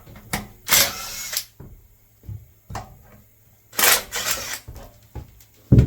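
Air impact wrench run in two short bursts about three seconds apart, loosening motor-mount bolts, with a heavy thump near the end.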